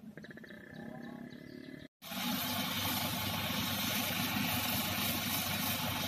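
About two seconds in, after a quieter stretch, a water-tanker truck's engine runs steadily while its hose sprays a strong jet of water onto a dirt road, a loud, even hiss and splash over the low engine hum.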